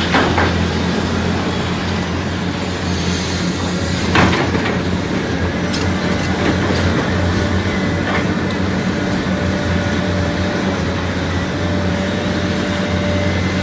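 Heavy diesel engine of a 90-ton Hitachi 890LC excavator running steadily under load while digging and loading spoil, with a knock about four seconds in.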